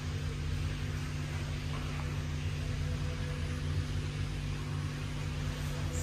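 Steady low mechanical hum of a Hitachi lift, with a faint steady tone above it.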